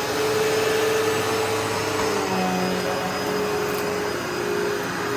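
2006 Hoover Elite Rewind upright vacuum cleaner running at full speed with a steady motor whine, which drops slightly in pitch about two seconds in.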